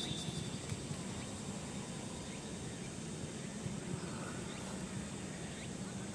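Steady high-pitched insect chorus over a low background rumble of outdoor noise.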